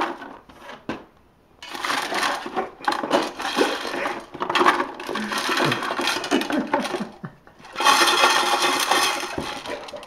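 Cardboard boxes scraping and rattling against the inside of a metal stockpot as they are stirred around by hand. It starts about a second and a half in, with a short break near the end.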